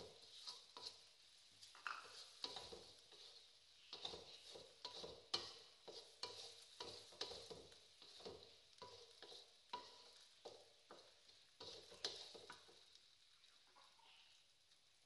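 Wooden spatula scraping and tapping against a metal wok in quick, irregular strokes while stir-frying chicken and greens, over a faint sizzle. The strokes stop about twelve seconds in, leaving only the faint sizzling.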